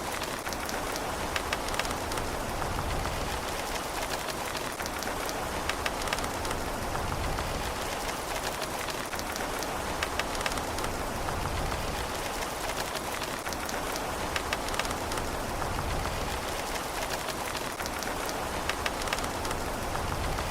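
Steady rain falling, with individual drops landing as sharp clicks scattered over the even hiss of the downpour. No thunder.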